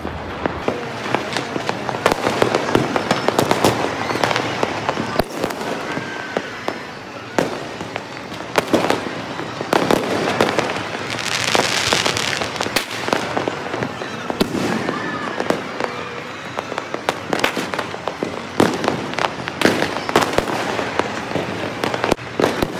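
Fireworks and firecrackers going off all over a city at once: a dense, continuous crackle of bangs and pops at many distances, with sharper close cracks throughout and a louder hissing burst about halfway through.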